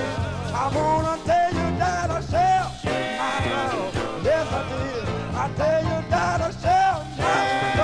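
Soul-funk record playing: an instrumental passage with a lead melody line that slides and wavers in pitch over a steady bass line.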